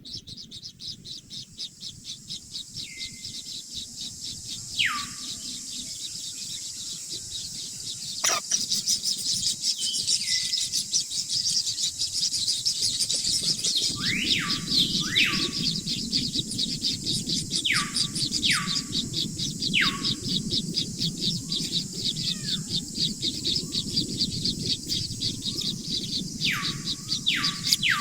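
Kingfisher nestlings chirping in a fast, continuous high-pitched stream, growing louder after a sharp click about a third of the way in. Throughout, separate calls repeatedly slide steeply down in pitch and end on a short held lower note.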